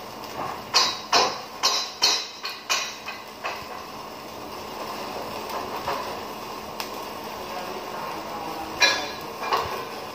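Electric arc welding on steel C-channel: a steady crackle from the arc. A quick run of sharp metallic knocks comes about a second in, and two more near the end.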